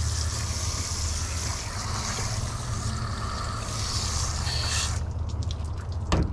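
Garden-hose spray nozzle spraying water onto a plastic cutting board, rinsing it: a steady hiss of spray that cuts off about five seconds in. A couple of short knocks follow near the end.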